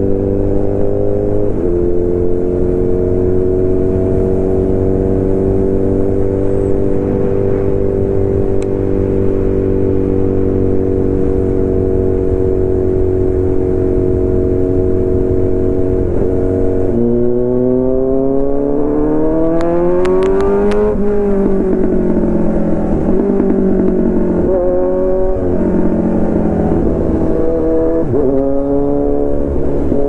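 Kawasaki Z900's inline-four engine through a full-system Arrow exhaust, heard from on the bike while riding. It holds near-constant revs for the first half, then revs up in a long rise about 17 seconds in. After that it eases off and rises and falls several times with the throttle.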